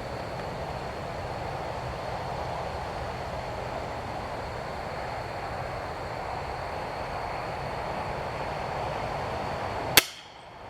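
Steady outdoor background rumble, then near the end one sharp, loud crack: an Excalibur Matrix 405 crossbow firing a bolt. The background briefly drops away after the crack.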